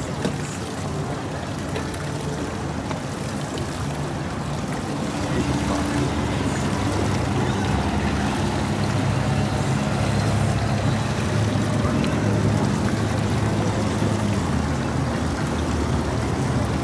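Motorboat engine running steadily under wind and water noise, growing louder about five seconds in and holding.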